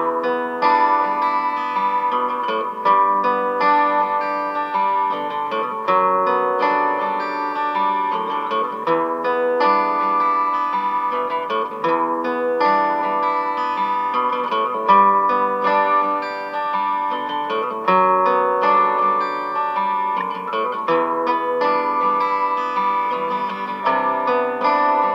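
Acoustic guitar ballad music, plucked notes with little bass, played by an Amazon Echo Dot through a 3D-printed gramophone-style horn.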